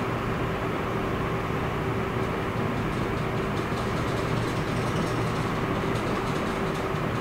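Steady machine hum and rushing noise with a constant mid-pitched tone, with faint rustling of paper in the middle as hands work the kite tissue.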